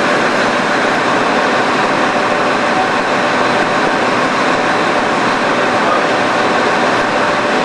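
Steady, loud industrial machinery noise: an even hiss with a faint hum underneath, with no rhythm or change.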